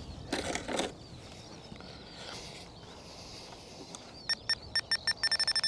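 A string of short electronic beeps from the RC plane's radio gear, starting about four seconds in: spaced at first, then a quick run of them near the end. Before that, a brief rustle and faint bird chirps.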